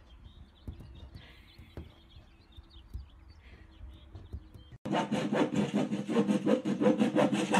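A saw cutting through a thin wooden board in rapid back-and-forth strokes, starting abruptly about five seconds in. Before it there are only faint, low sounds.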